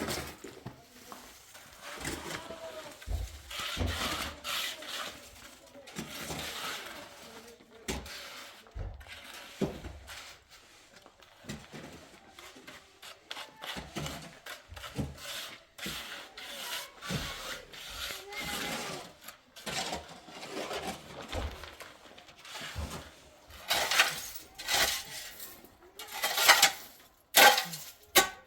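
Irregular scraping and rubbing strokes of a hand tool working cement mortar, with louder, sharper scrapes near the end.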